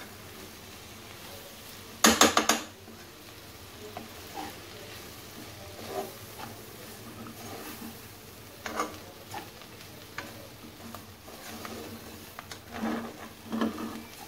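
A spatula stirs and scrapes a flour, onion, carrot and mushroom mixture around a non-stick frying pan over a light sizzle while the flour is toasted. A quick burst of clattering knocks about two seconds in is the loudest sound, and shorter scrapes and knocks follow every few seconds.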